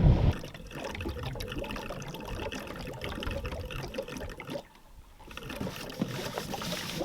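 Diesel exhaust fluid trickling and splashing as it is poured into the tractor's DEF tank, with a brief break about five seconds in.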